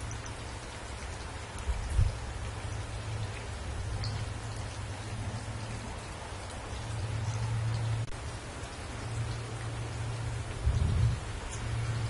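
Steady rain pattering on spruce branches, an even hiss of drops. Under it runs a low rumble, with two louder low thumps, about two seconds in and near the end.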